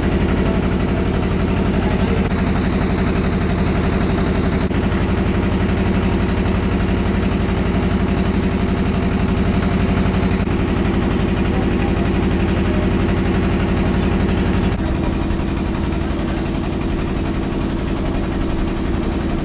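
An engine running steadily with a fast, even beat. About 15 seconds in, its note shifts and it drops a little in level.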